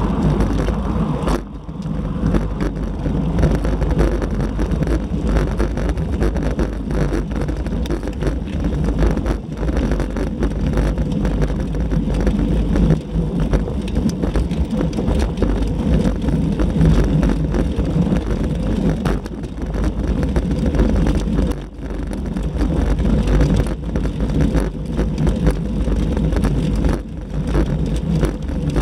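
Steady, loud wind rushing over the microphone of a camera on a road bicycle being ridden at speed, buffeting unevenly throughout.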